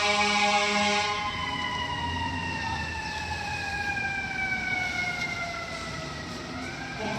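Fire engine's air horns blasting, cutting off about a second in, over its siren, which then falls slowly in pitch for several seconds and rises again near the end.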